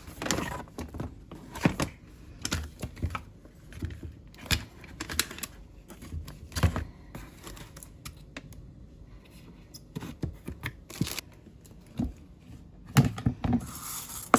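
Irregular light clicks and knocks of hard objects being handled, with a quick cluster of them near the end.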